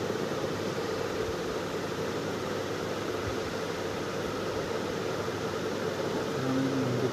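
Steady background noise: an even hiss with a low hum, unchanging throughout. A brief low tone sounds about six and a half seconds in.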